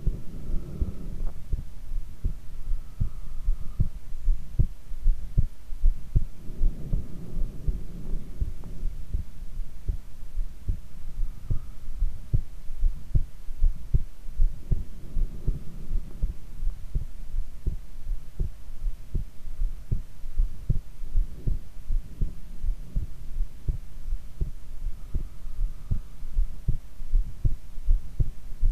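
A woman's heartbeat, picked up close against the chest while she lies face down: a steady train of low, muffled beats in an even rhythm, with a slower swell of low noise every several seconds.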